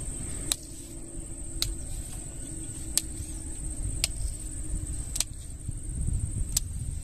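Insects trilling steadily at a high pitch, with a sharp tick about once a second.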